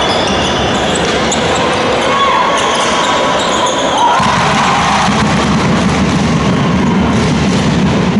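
Basketball game sounds on a hardwood court: sneakers squeaking and a ball bouncing, with voices in the gym. About four seconds in, the sound changes abruptly to a heavier low rumble.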